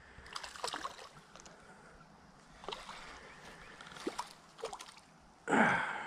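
Hooked redbreast sunfish splashing and thrashing at the creek surface while it is reeled in: a few short faint splashes, then a louder splash about five and a half seconds in.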